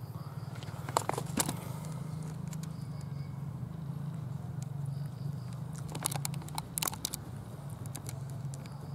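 A steady low mechanical hum, like a distant engine, runs throughout. Short sharp crackling clicks come twice about a second in and as a cluster around six to seven seconds in.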